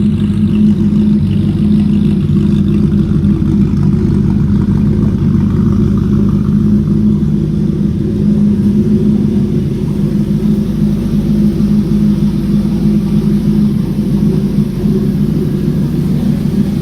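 2003 Ford SVT Lightning's 5.4-litre V8, fitted with a 2.3-litre Whipple supercharger, idling steadily.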